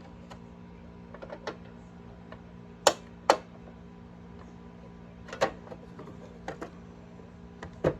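Scattered light clicks and taps of a Favero fencing scoring machine's case and parts being handled and fitted back together while lining up screw holes. There are two sharper clicks close together about three seconds in, and a steady low hum runs underneath.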